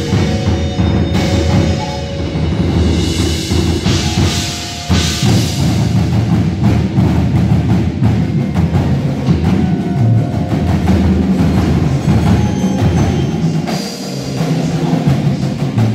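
A marching band playing its show music, percussion to the fore: bass drums, timpani and mallet keyboards together with the winds.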